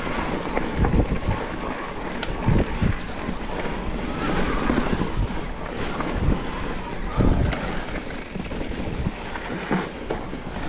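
Yamaha Moro07 mountain bike rolling fast down a dirt singletrack, heard from a chest-mounted action camera: wind rushing over the microphone and tyres on dirt, with uneven low thumps and an occasional sharp click or rattle from the bike over bumps.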